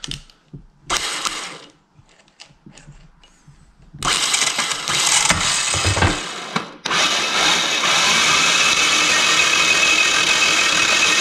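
Electric starter cranking a Yanmar two-cylinder diesel engine without it catching. There is a short burst about a second in, then steady cranking from about four seconds in with a brief break near seven seconds. The engine does not fire because the injection pump sends no diesel to the injectors, which the owner suspects is a seized pump.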